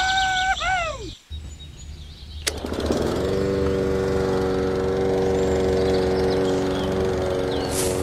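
A short high call that bends up and down in pitch, then a click about two and a half seconds in as a small electric toy motor switches on. The motor runs steadily with an even whir, driving the miniature chaff cutter's flywheel through a belt.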